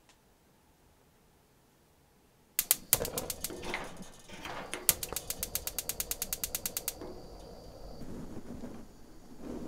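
A slatted window blind being opened: a sharp clatter about two and a half seconds in, then a fast, even run of ratcheting clicks, about eight a second for some two seconds, then quieter rustling.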